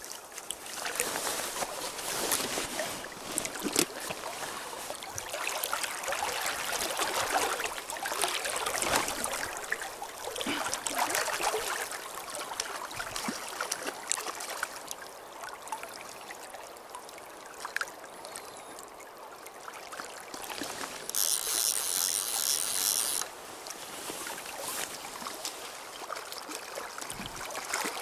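River water flowing and lapping close by, a steady noisy wash with small swells and a few faint ticks. About three quarters of the way through, a louder high hiss lasts about two seconds and stops abruptly.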